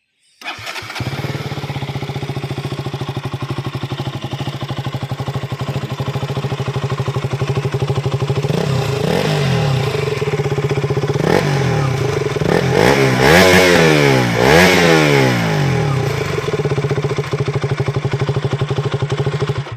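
KTM Duke 200 BS4's single-cylinder four-stroke engine starting up and idling steadily, then revved in a series of quick throttle blips midway, the pitch rising and falling each time. It settles back to idle and cuts off suddenly right at the end.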